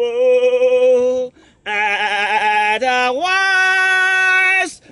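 A man singing loudly without accompaniment. He holds long drawn-out notes, breaks off briefly about a second and a half in, then sings a wavering note followed by another long held one.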